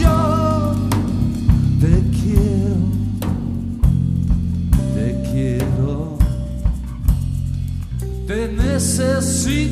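Live band music from drum kit, bass and guitar, with repeated drum hits under sustained bass notes and a wavering melody line.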